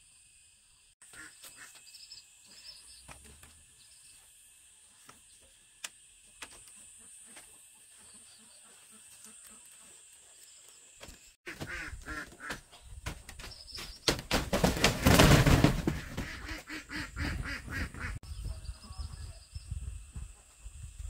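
Animal or bird calls in rapid, closely repeated strokes, faint at first and loud in the second half, loudest in the middle of that half.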